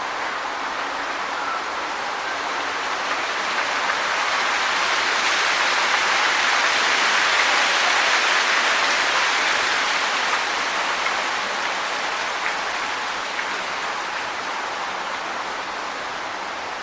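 Wind blowing through tree leaves, a steady rustling hiss that swells in a long gust to a peak about halfway through and then eases off.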